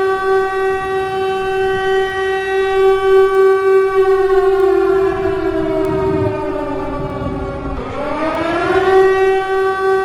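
Civil defense warning siren wailing: a steady held tone that slowly falls in pitch from about four seconds in, then winds back up about eight seconds in and holds again.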